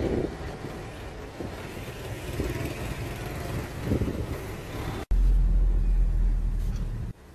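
Vehicle and street traffic noise while riding along a road, with a few passing swells. About five seconds in, a cut to a loud steady low rumble of engine and road noise inside a car's cabin, ending abruptly near the end.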